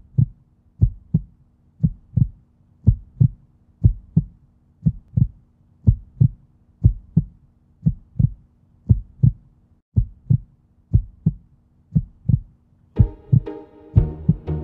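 Background music: a slow intro of paired deep drum beats, about one pair a second like a heartbeat, over a held low tone, with fuller instruments coming in near the end.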